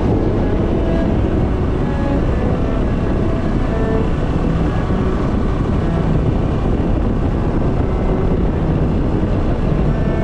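Small motorcycle running steadily while riding along a road, engine noise mixed with wind rushing over the microphone.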